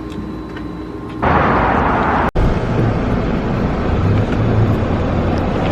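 Vehicle noise: a steady low rumble that turns into louder rushing noise about a second in, broken by a split-second dropout just after two seconds.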